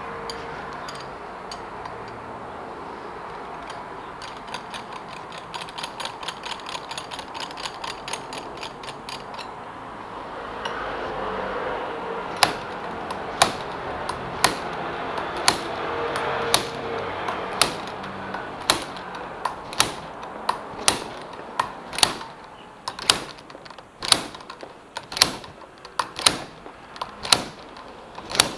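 Slide-hammer puller working the stock bar-end weight out of a KYMCO KRV180 scooter's handlebar. From about twelve seconds in come sharp metal clanks as the sliding weight strikes its stop, about one a second at first and quicker near the end. Earlier there is a run of rapid clicks, about six a second.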